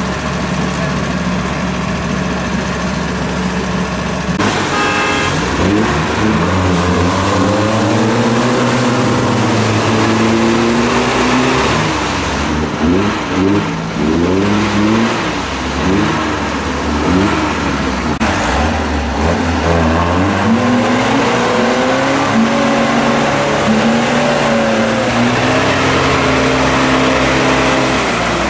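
UAZ-469 off-roader's engine idling steadily, then from about four seconds in revving hard again and again, its pitch rising and falling, as the vehicle churns with spinning wheels through deep mud.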